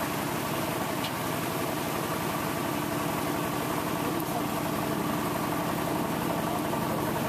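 An engine running steadily with an even hum, holding a constant pitch and level throughout.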